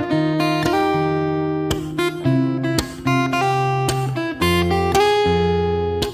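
Background music on a strummed acoustic guitar, with a new chord struck about every second.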